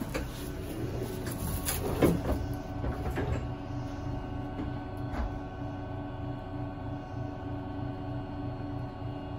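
Steady electrical hum inside a 651 series train car standing at a platform, with a few sharp knocks and clicks, the loudest about two seconds in.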